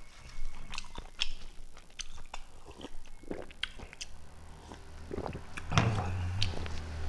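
Close-up eating sounds: chewing and biting with wet mouth noises and short clicks, and a sip from a glass mug of broth about four seconds in. A low steady hum comes in partway through.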